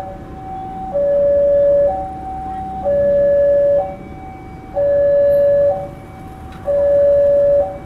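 Electronic two-tone railway level-crossing alarm, alternating steadily between a louder low tone and a higher tone about once a second. It signals that the crossing gates are down for an approaching train.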